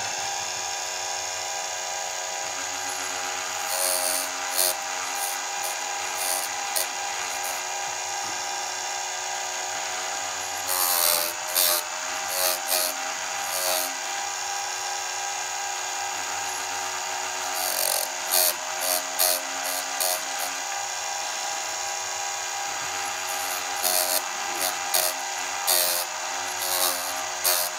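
Electric chainsaw chain sharpener's grinding wheel running with a steady motor whine, broken by four groups of short, harsh grinding bursts as the wheel is lowered onto the chain's rakers (depth gauges) to grind them down below the cutters.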